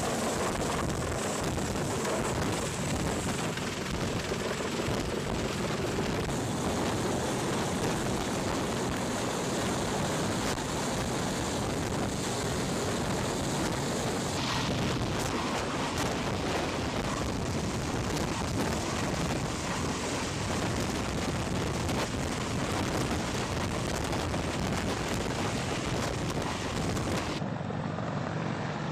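Sikorsky CH-53 heavy-lift helicopter hovering low overhead: its turbines and rotor wash make a loud, steady rush. Near the end the sound turns duller as the hiss falls away abruptly.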